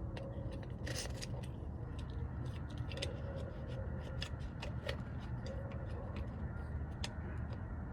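Scattered small clicks and taps of plastic parts being handled as the doorbell's wedge mount is flipped and fitted, over a steady low hum.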